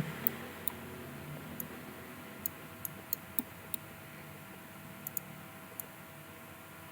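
Computer mouse clicking about a dozen times at irregular intervals, including a quick double-click about five seconds in, over a faint steady room hiss.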